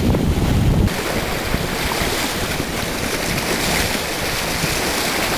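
Wind buffeting the microphone with a low rumble. About a second in it cuts abruptly to a steady, even rush of wind and water.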